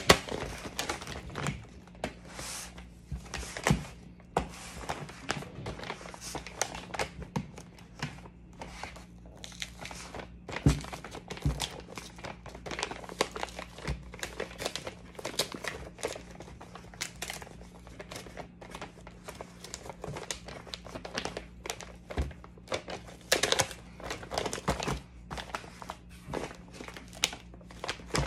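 A mini powdered donuts bag being handled and torn open by hand: many short crinkling crackles and tearing, with a few louder knocks, over a low steady hum.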